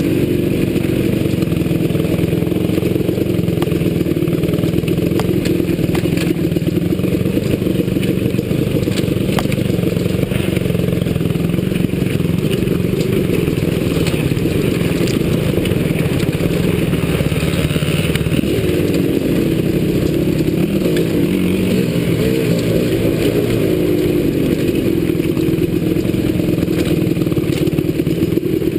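Dirt bike engine running under load, heard close from the bike itself, its pitch rising and falling as the throttle is worked over rough trail, with scattered knocks and rattles from the bike.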